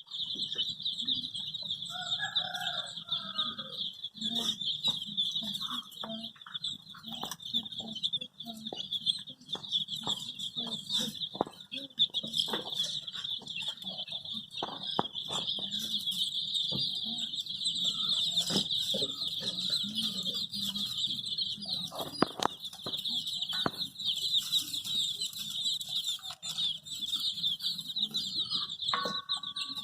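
A brood of baby chicks peeping in a dense, continuous chorus of high, rapid chirps, with scattered clicks. A short, lower call sounds about two seconds in.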